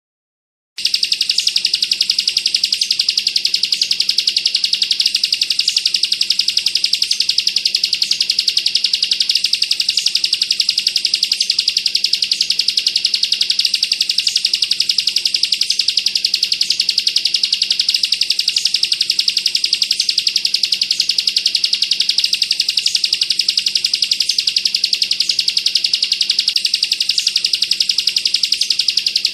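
Bar-winged prinia (ciblek kristal) singing a fast, unbroken high-pitched trill, the rapid 'bren' song, starting about a second in after a brief gap.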